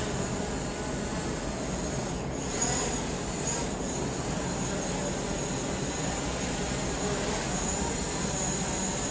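Steady mechanical hum and hiss with a thin high whine over it, with a brief change about two and a half seconds in.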